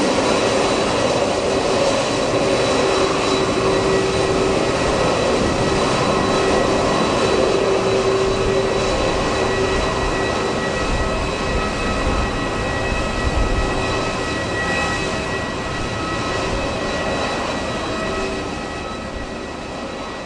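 Jet airliner engines running at high power, a steady rush with whining tones, fading away over the last few seconds. Gusts of strong wind rumble on the microphone.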